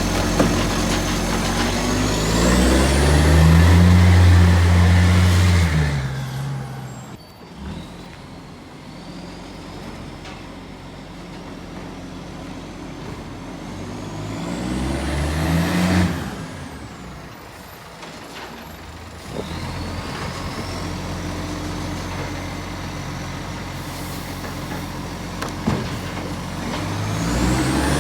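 Garbage truck's diesel engine revving hard and pulling away twice, each time with a rising whistle, then dropping back to a steady run between pulls. The truck has an exhaust leak.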